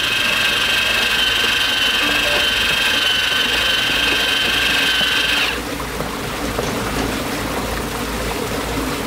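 A small electric motor whines steadily at one pitch, then cuts off suddenly about five and a half seconds in, leaving the steady rush of water pouring out through the mini dam's spillway gate.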